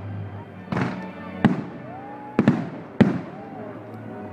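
Aerial fireworks bursting: about five sharp bangs, two of them in quick succession near the middle.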